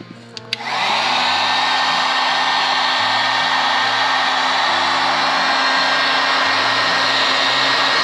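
An electric heat gun starts up after a couple of clicks about half a second in, its fan spinning up within half a second to a steady hot-air rush with a motor whine. It is shrinking heat-shrink tubing over wire ends.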